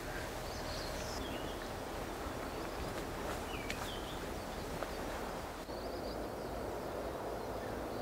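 Forest ambience: a steady wash of wind through the leaves, with a few short, high bird calls scattered through it.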